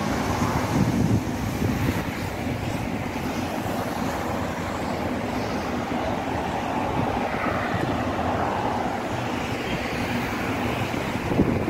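Steady road traffic noise from vehicles passing on the avenue below.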